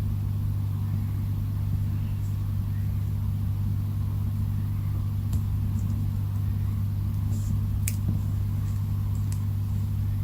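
Steady low hum with a few faint clicks about five, eight and nine seconds in.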